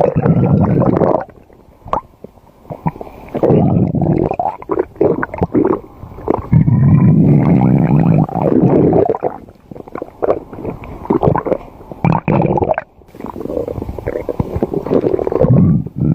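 Stomach growling: about five long, loud bouts of gurgling rumbles with short pauses between them.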